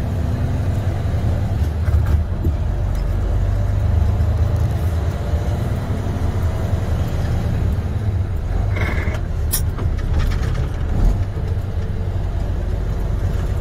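Semi tractor's MaxxForce 13 diesel engine running at low speed, a steady low drone heard from inside the cab, with a short sharp sound about nine seconds in.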